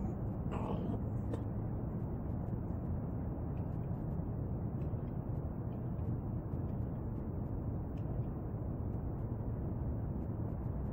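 Steady low rumbling background noise with no clear single source, such as wind or distant traffic outdoors at night, with faint scattered ticks.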